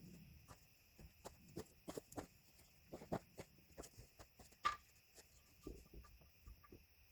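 Rocks knocking and clacking against each other as they are shifted and set in place, in scattered irregular knocks, with one sharper clack a little past halfway. A steady high insect trill runs underneath.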